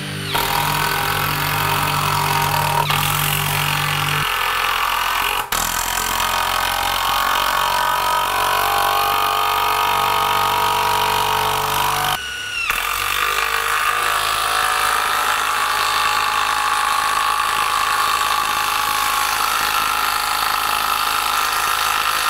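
Bosch 12V brushless cordless impact driver and impact wrench hammering long screws and lag screws into a wooden beam, a steady impacting rattle over the motor's whine. The sound breaks off briefly about five seconds in and again about twelve seconds in, between separate runs.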